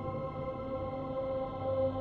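Ambient synthesizer drone music: several steady tones held without a break, layered over a low hum.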